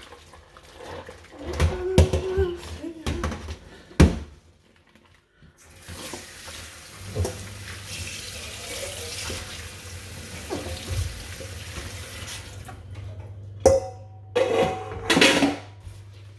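A kitchen tap runs into a sink for about seven seconds as a steady hiss. Before it come knocks and clatter with one sharp knock, and a few loud clunks follow near the end.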